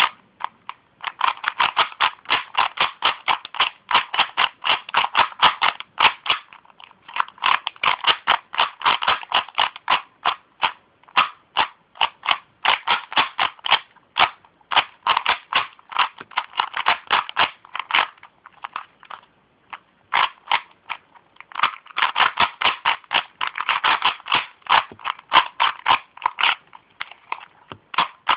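A new Rubik's Cube being solved by hand: rapid runs of plastic clicking and clacking as its layers are turned. The runs break off in short pauses every few seconds.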